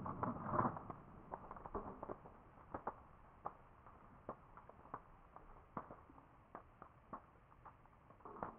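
Faint fire from a collapsing propane fireball: a fading rush of flame in the first second, then scattered sharp pops and crackles, one or two a second, as the burning fuel on the ground dies down.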